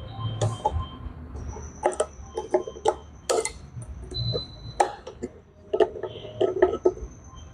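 Irregular metallic clinks and taps of hand tools and parts being handled while a new U-joint is fitted into a driveshaft yoke.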